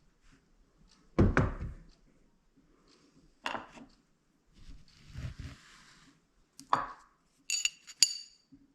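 Metal kitchen items being handled, making a series of separate knocks and clinks. The loudest is a heavy knock about a second in, and the last two, near the end, ring with a clear metallic tone.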